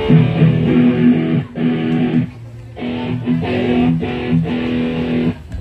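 Amplified electric guitar strumming a series of chords over a stage sound system during a sound check, in held blocks with short breaks between them, stopping just before the end.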